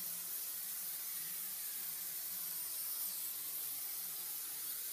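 Two-part spray foam insulation gun hissing steadily as it sprays foam onto a metal-clad wall.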